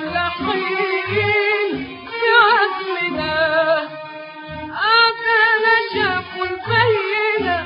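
Classical Arabic orchestral song from a 1956 recording: strings and a singing voice in long, ornamented phrases with vibrato, over a low pulsing accompaniment.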